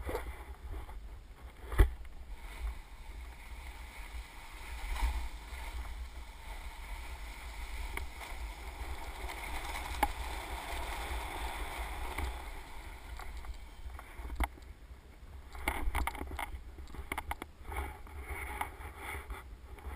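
Snow hissing and scraping under a rider's edges while sliding and turning down a steep, firm spring snow slope. Wind rumbles on the microphone throughout. A few sharp knocks break in, the loudest about two seconds in.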